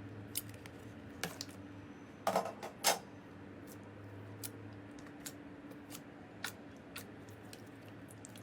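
Slime being handled: scattered small clicks and pops, with a louder crackly pair about two to three seconds in, over a faint steady hum.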